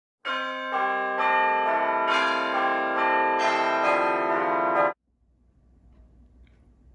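Church bells ringing a run of strikes, about two a second, each one overlapping the last; the ringing cuts off abruptly about five seconds in, leaving a faint low hum.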